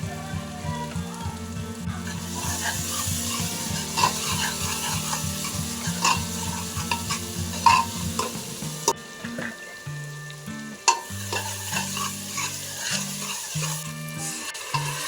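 Food sizzling as it fries in a pot while being stirred, with a spoon knocking and scraping against the pot several times.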